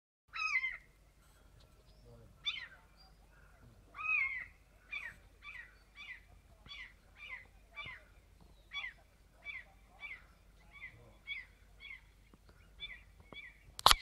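Gull calling over and over: two longer calls in the first few seconds, then a steady run of short, sharp calls about two a second, in a dispute with another gull over a perch. A sharp click near the end.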